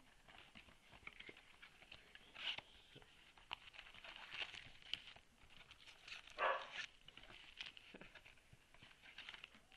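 Handling noise from opening a trading-card box: plastic wrap and cardboard crinkling and rustling, scissors snipping, and card packs tapped down on a wooden table, in scattered faint crinkles and taps with a louder rustle about six and a half seconds in.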